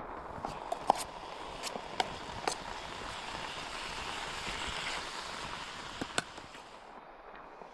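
Steady rain falling, a hiss with a few sharp drip-like taps scattered through it, easing slightly near the end.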